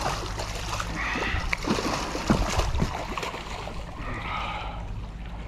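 Water splashing and sloshing around a landing net as a black drum is netted beside a kayak, with scattered knocks and two brief squeaks.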